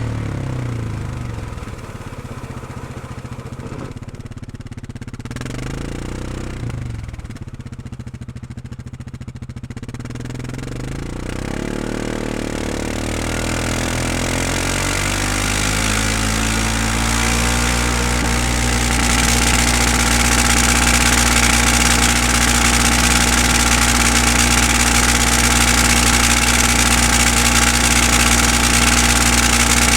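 Four-stroke utility ATV engine running; its pitch dips and wavers through the first ten seconds, then climbs and grows louder, settling into a steady note from about twenty seconds in.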